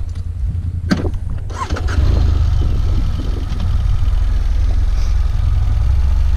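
Motorcycle engine running at low revs with a sharp click about a second in; from about two seconds it gets louder and steadier as the bike pulls away and rides on, with wind and gravel road noise.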